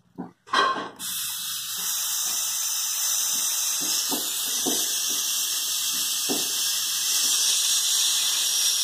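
A couple of sharp knocks, then about a second in a loud steady hiss of pressurized nitrogen venting out of the freezer's sealed refrigeration system through the gauge valve and hose. This is the nitrogen pressure-test charge being released after the weld repair, ahead of pulling a vacuum.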